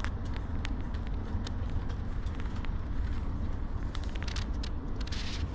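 Motor coach on the move, heard from inside the cabin: a steady low engine and tyre rumble on a wet road, with scattered light clicks and a brief hiss about four seconds in.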